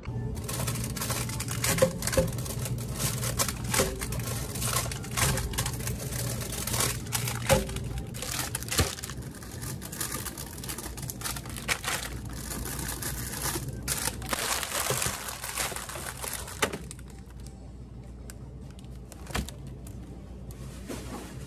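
Plastic-wrapped ice cream bars crinkling and rustling as hands rummage through a shop chest freezer, over a steady low hum. The rustling dies down about three-quarters of the way through.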